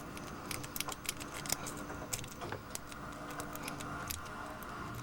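Lock pick and tension wrench working the pin-tumbler Schlage cylinder of a Master 6621 padlock: irregular small metallic clicks and scrapes as the pins are raked and set, shortly before the lock opens.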